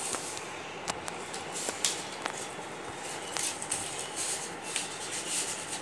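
Handling noises: a few sharp clicks in the first half, then short high rustles, over a steady hiss.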